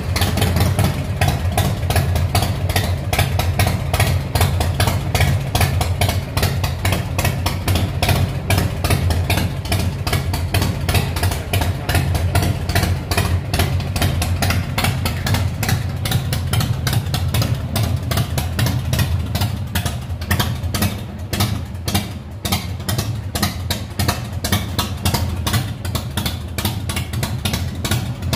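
Harley-Davidson V-twin motorcycle engine idling steadily, with a rapid, even run of exhaust pulses.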